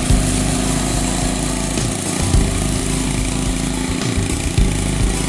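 Small engine of a home-built go-kart buggy running steadily as the kart drives along.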